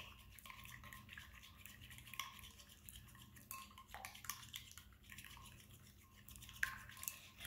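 Plastic spoon stirring goopy slime in a bowl: faint wet scraping and scattered light clicks, with one slightly louder tap near the end.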